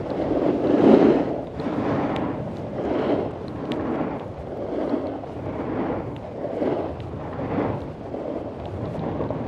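Snowboard sliding and carving down groomed piste snow, its edge scraping in swells that rise and fade about once a second as the rider links turns.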